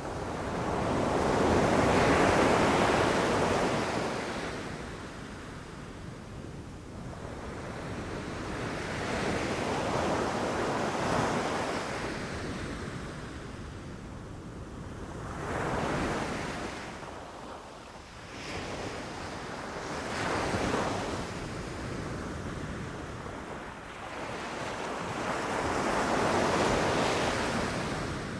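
Ocean surf breaking and washing up the shore in slow swells several seconds apart, about five in all, the loudest about two seconds in.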